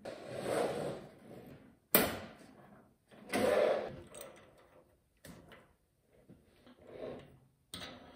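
Short household handling noises: several brief scraping swishes and a sharp knock about two seconds in.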